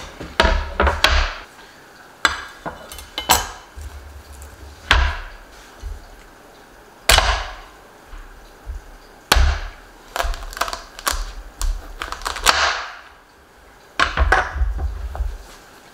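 A large kitchen knife cutting through a whole spaghetti squash's hard rind on a plastic chopping board on a wooden counter: a dozen or so irregular knocks and thumps as the board is set down and the blade is worked and rocked through the squash.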